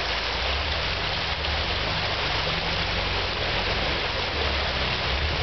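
Jeep Wrangler engine idling low under a steady rushing hiss like a running creek.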